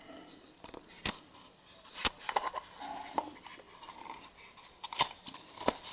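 Handling noise from a homemade metal detector's circuit board and case being turned in the hands: about four sharp knocks and clicks with light rustling between them.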